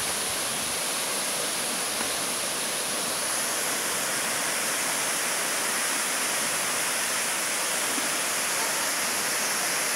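Waterfall plunging into its pool: a steady, even rush of water.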